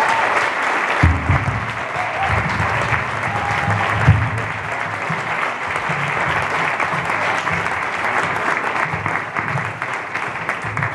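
Audience applauding, with music with low bass notes playing underneath from about a second in.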